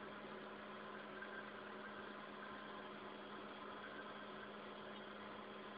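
Faint steady low hum over a soft even hiss, unchanging throughout: the background hum of running equipment in the room.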